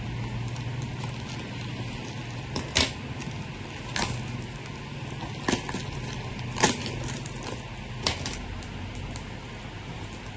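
Packaging being handled and opened: about six short, sharp crackles and taps, over a steady fan hum.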